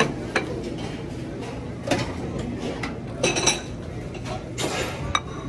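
Serving utensils and dishes clinking at a buffet: several short, sharp clinks of metal and china over a steady background din.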